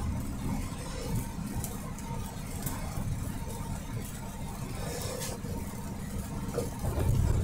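Steady low rumble of engine and tyres heard from inside a vehicle's cab while driving on a wet highway in rain.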